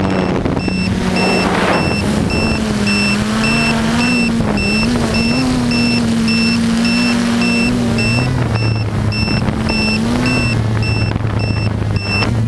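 Quadcopter's electric motors and propellers buzzing in flight, the pitch wavering up and down with the throttle. A high electronic beeper sounds in an even, rapid series over it.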